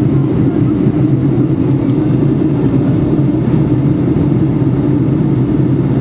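Steady drone of a jet airliner's engines and airflow heard from inside the passenger cabin during the climb after takeoff.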